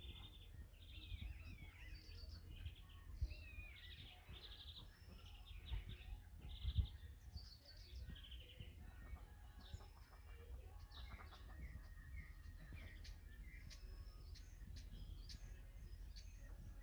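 Small songbirds singing and chirping, with many short and gliding notes, busiest in the first half. Under them runs a steady low rumble, with one louder thump about seven seconds in.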